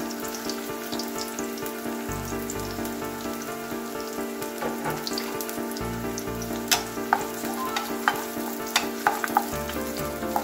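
Red onion and garlic sizzling in hot oil in a wok as they sauté. Over the last few seconds a run of sharp clicks comes in as a wooden spatula stirs them against the pan.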